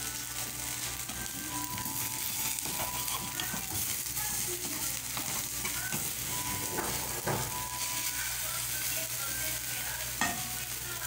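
An egg omelette sizzling steadily in a frying pan over a gas burner, with a slotted spoon scraping and clicking against the pan now and then, one sharper click about ten seconds in.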